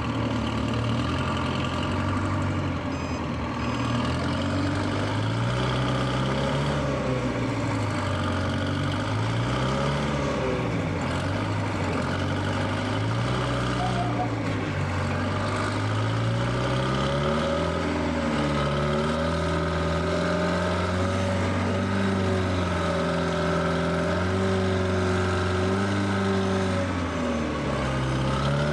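Heavy engine running, its pitch rising and falling slowly again and again as it is revved up and throttled back.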